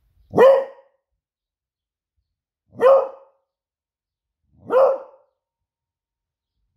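Beagle giving three single, short barks about two seconds apart: alarm barking.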